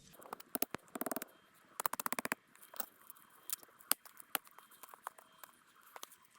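Campfire kindling of pitch-rich wood catching, crackling with sharp irregular pops and ticks, with a quick run of clicks about two seconds in.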